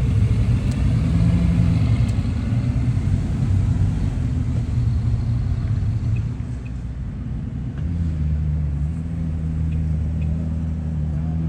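Bugatti Veyron's quad-turbocharged 8.0-litre W16 engine running steadily at low revs with a low rumble. Its level dips about six seconds in, and about two seconds later it settles into a slightly lower steady note.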